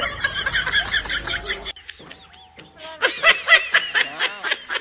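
High-pitched laughter in quick pulses that breaks off abruptly a little under two seconds in and starts again about a second later.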